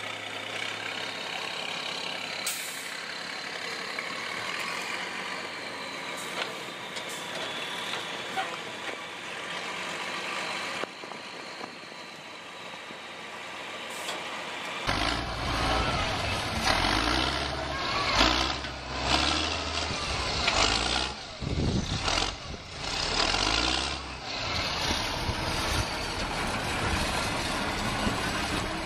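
Engine of a self-propelled bale stacker truck running steadily as it picks up and stacks hay bales. About fifteen seconds in it gives way to a louder, more uneven engine sound from a wheel loader carrying a round bale.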